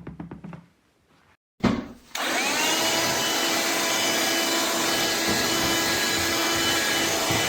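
Black+Decker Dustbuster 7.2V cordless handheld vacuum switched on with a click. Its motor spins up with a rising whine, then runs steadily.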